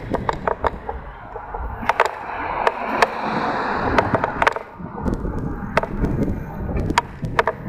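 Wind buffeting the microphone of a helmet-mounted camera during a bicycle ride, a steady low rumble, with scattered sharp clicks and rattles from the ride. A hiss swells in the middle and fades again.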